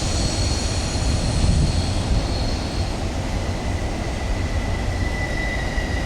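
Steady low rumbling background noise with faint, thin high steady tones above it.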